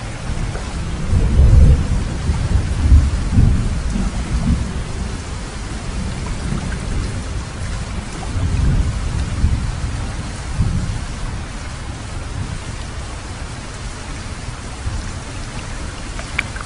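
Steady rain falling on water, a constant hiss, with deep low rumbles that swell and fade, strongest about one to five seconds in and again around eight to eleven seconds in.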